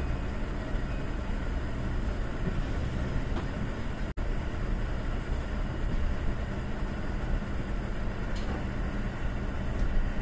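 Kintetsu limited express train pulling out of the station, heard inside the car: a steady low rumble of the motors and running gear as it starts to move, with a brief break about four seconds in.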